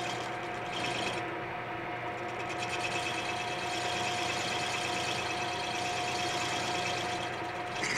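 A lathe running steadily with a constant whine while a wooden workpiece is turned down to diameter.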